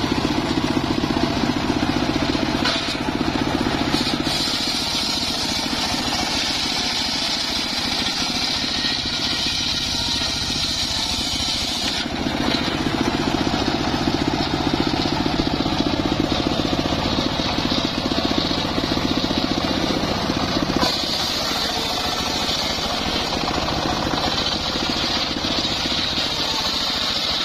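Homemade engine-driven circular sawmill running steadily, with a higher whine that comes and goes over the steady engine note.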